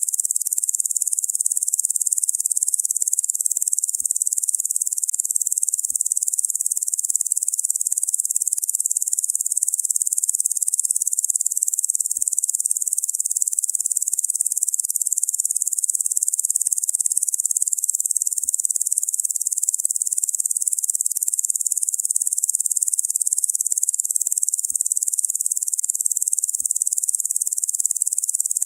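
Locusts making a continuous, high-pitched insect buzz. It is very steady, with no pauses or changes.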